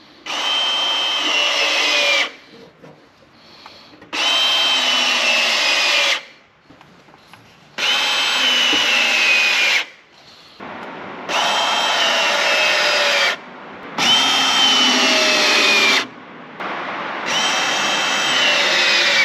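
Ryobi powered PEX crimping tool cycling six times in a row, each press a motor whine of about two seconds whose pitch drops near the end as the jaws close a clamp onto a PEX fitting.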